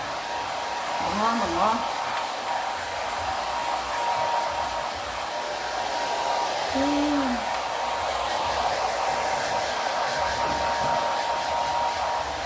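Hair dryer running steadily, a constant rush of air with a thin steady whine in it, blowing a dog's coat dry.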